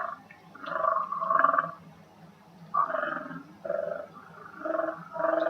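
Garbled, buzzy 'weird robot sounds' with a 'breathing effect' coming over a telephone line on hold, in place of hold music: about half a dozen short gargling bursts of under a second each, with quiet gaps between them, heard through the phone's speaker.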